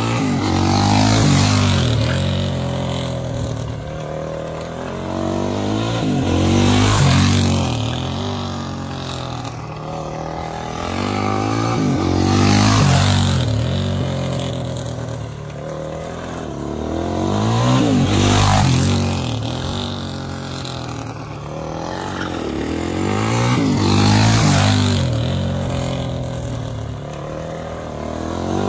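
Race motorcycle's engine lapping a tight circle, passing close about every six seconds, five times. The note swells and bends in pitch as it goes by, then fades.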